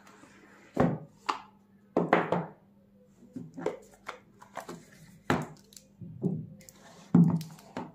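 Cardboard smartphone retail box being opened by hand: a series of about ten separate knocks, taps and scuffs as the lid is slid off and the box and phone are handled on a wooden table, the loudest near the start, around two seconds in and near the end.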